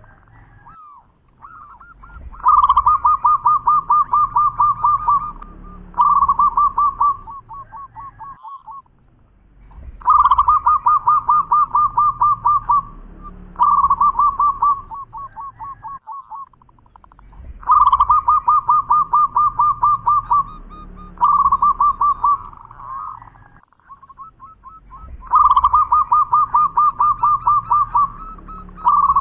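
Zebra dove (perkutut) singing its rolling cooing song. There are four phrases, each a fast trill of coos followed by a shorter trill, repeating about every seven and a half seconds.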